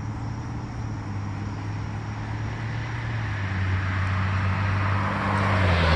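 A steady low engine hum that drops in pitch about halfway through, while the rushing noise of an approaching vehicle grows louder toward the end.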